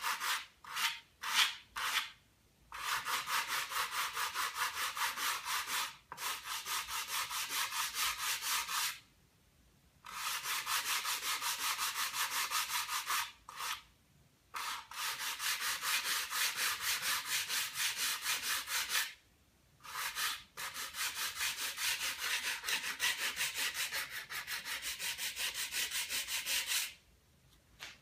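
Sandpaper rubbing over a model glider wing's leading edge in quick, even back-and-forth strokes. The strokes come in several long spells with short pauses between them. This is light finish-sanding, taken down until the marker and tape just break through.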